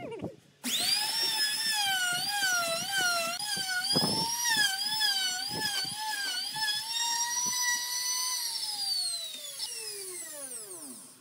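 Handheld trim router starting up and cutting a circle in a wooden disc, its high whine wavering in pitch as the bit loads and unloads. Near the end it is switched off and winds down with a steadily falling pitch. A brief knock sounds about four seconds in.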